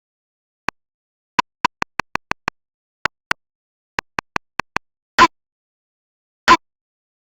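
Very short chopped stabs of the 'GET OUT' voice sound effect, pitched to play a melody with dead silence between the notes: a single hit, a quick run of about seven, two more, a run of five, then three slightly longer hits near the end.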